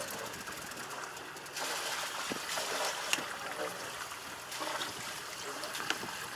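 Sea water rushing and trickling past the hull of a sailing yacht under way, with a few short sharp knocks.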